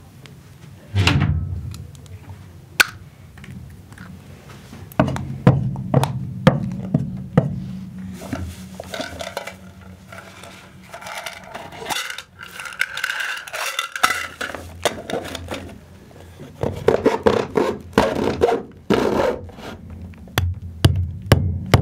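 Workshop sounds: tools and objects knocked, clattered and scraped, in irregular sharp strikes with a low hum underneath. A steadier, higher-pitched scraping stretch comes in the middle, and a quick run of strikes near the end.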